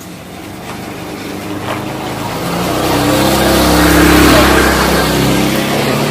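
A motor vehicle's engine drawing near, growing steadily louder to a peak about four seconds in and staying loud, its pitch shifting as it goes.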